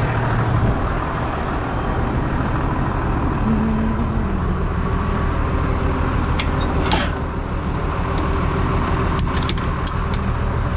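Farm tractor's diesel engine running steadily at a constant speed, a deep even drone, with a few light clicks about two-thirds of the way through and near the end.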